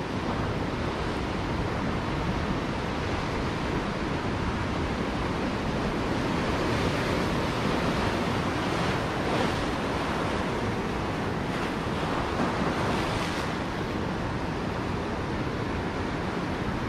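Ocean surf breaking and washing over rocks and shallow water along the shore, surging louder a couple of times midway.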